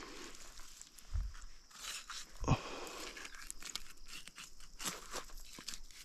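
Knife cutting and meat tearing as the backstrap is worked out of a chital deer carcass, with scattered small crackles. Two dull thumps come about a second and two and a half seconds in, the second the loudest.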